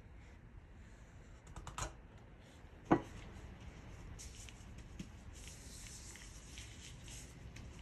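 Plastic plunger mooncake mould knocking on the baking tray as it presses out a mooncake: a few light clicks, then one sharp knock about three seconds in. Later a soft rustle of plastic food-prep gloves rubbing in flour.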